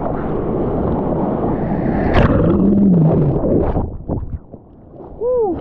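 Broken whitewater rushing and churning around a camera held low on a bodyboard, with wind and water splashing on the microphone. The rush drops off sharply about four seconds in, and a short falling tone sounds near the end.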